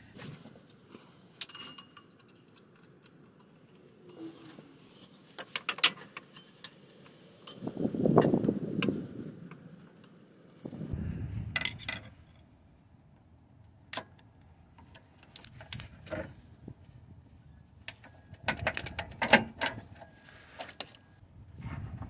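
A 3/8-inch flexible-head ratchet clicking and metal tools clinking in scattered short bursts as a bolt on the power steering pump is turned. A louder muffled rustle comes about eight seconds in, and a smaller one near eleven seconds.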